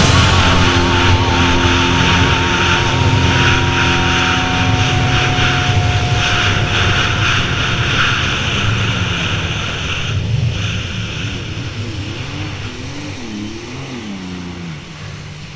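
Racing jet ski engine running at speed under wind and water-spray noise, getting gradually quieter over the last several seconds.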